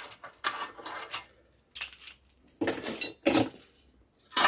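Steel clanking and scraping as the clamps come off a homemade angle-iron bending brake in a bench vise and the angle iron is handled. It comes as a few short bursts of knocks and rattles with pauses between them.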